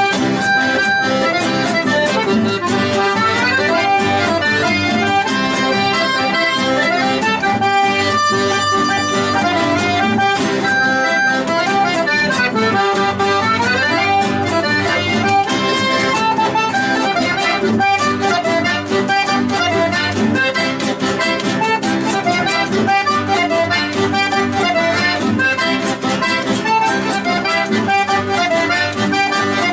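Accordion playing a chamamé tune in a lively rhythm, with quick melodic runs over sustained chords.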